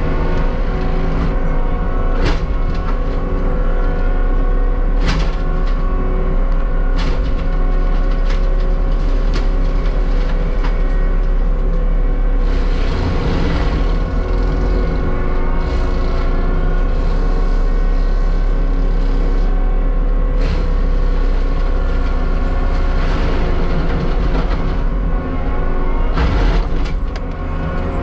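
Heavy tracked diesel land-clearing machine running steadily, with sharp knocks and cracks scattered through it.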